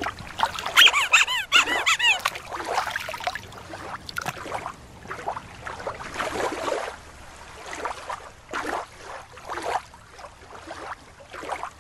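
Killer whale calls: a run of high, squeaky whistles that rise and fall, followed by a string of shorter, noisier sounds.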